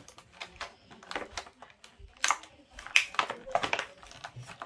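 Clear plastic packaging crinkling and crackling in quick, irregular clicks as hands rummage in it.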